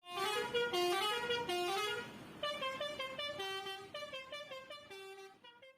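Bus telolet horn, a Basuri-type multi-tone horn, playing a quick tune of stepped notes. A louder phrase runs for about two seconds, then a softer phrase fades out near the end.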